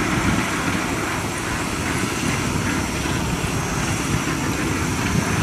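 Kubota DC93 rice combine harvester running steadily, its diesel engine and machinery making a dense, even mechanical noise.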